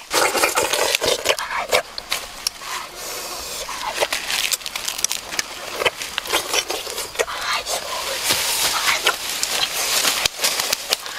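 Close-up eating sounds of a person chewing grilled chicken wings: dense, irregular wet smacking, clicking and crunching.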